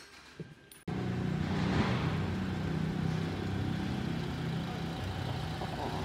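Fiat Ducato camper van's diesel engine idling steadily. It comes in abruptly about a second in, after a near-quiet moment.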